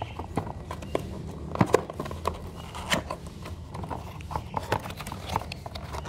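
Irregular clicks, taps and knocks of hard plastic parts being handled: a replacement air filter being taken out and tried against a Kärcher MV4 vacuum cleaner's filter housing. The sharpest knocks come about a second and a half in and again near the middle, with a steady low hum underneath.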